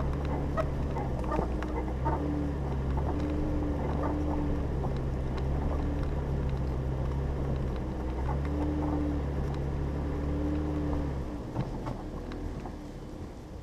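Jeep Grand Cherokee engine running at low speed as it climbs a rocky dirt trail, with small scattered clicks and knocks from the tyres and chassis over stones. The engine drone drops away about eleven seconds in.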